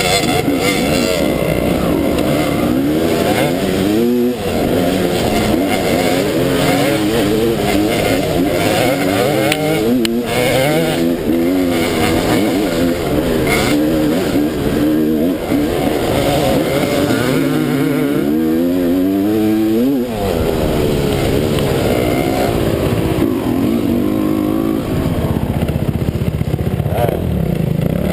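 Dirt bike engine running close by, revving up and down over and over with the throttle, its pitch climbing and falling every second or two, with a brief drop in revs about two-thirds of the way through.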